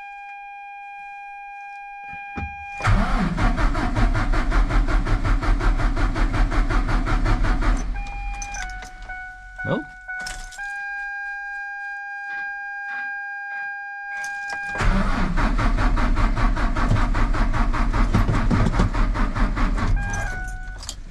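Ford F-750 dump truck's Cummins diesel cranking on the starter twice, about five seconds each time, without catching, with a steady high whine between the attempts. The engine won't fire after air got into the fuel line while the fuel filter was drained, and the batteries are running low.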